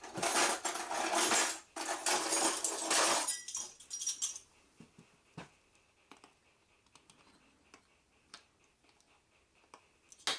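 Metal kitchen utensils jangling and rattling as a drawer is rummaged through, in two loud bursts over roughly the first three seconds. After that, only a few faint small clicks and clinks, a measuring spoon against a spice jar.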